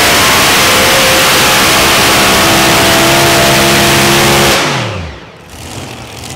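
Multi-engine Unlimited-class pulling tractor running at full throttle, very loud, pulling the sled with its rear tyres spinning. About four and a half seconds in, the engines are shut off and wind down with a quickly falling pitch: the end of the pull.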